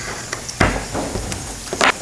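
A utility knife cutting a leather strip along a steel ruler: a few sharp clicks and scrapes, the loudest just after half a second in and near the end, over a steady hiss.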